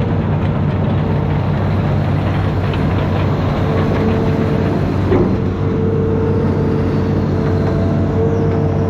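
Amphibious excavator's diesel engine running steadily under work, with a higher whine that comes and goes and a single brief knock about five seconds in.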